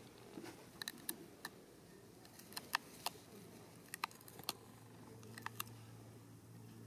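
Scattered sharp clicks and light crackles, irregular and faint, over a faint steady low hum.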